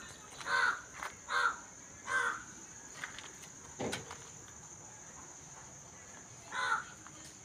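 A crow cawing: four short calls in the first two and a half seconds and one more near the end, with a single knock about four seconds in.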